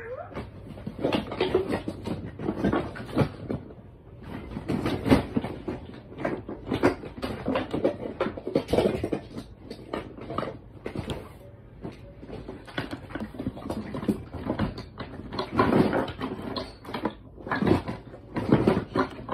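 Handling noise: a continuous run of irregular knocks, taps and rubbing, with no tune or voice.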